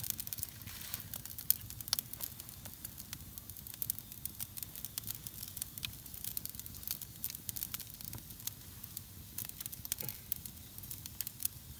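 Open wood campfire crackling, with irregular sharp pops over a faint low rumble of the flames.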